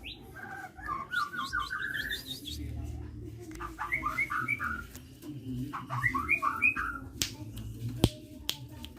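Sunbird singing in quick runs of short, high chirping notes, three runs in all, followed by a few sharp clicks near the end.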